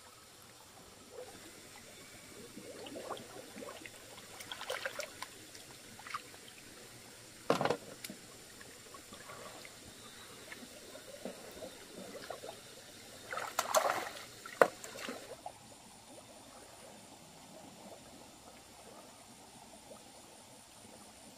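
Shallow muddy pond water splashing and sloshing as hands grope along the bottom for shellfish, with a few sharp knocks, the loudest cluster about two-thirds of the way through. The last few seconds are calmer.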